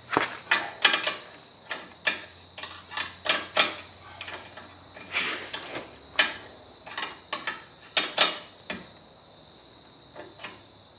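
Metal hand tools clicking and clinking in a run of sharp, irregular clicks, a few a second, as a small wrench is fetched and worked at the new lower ball joint's grease fitting; the clicks die away near the end.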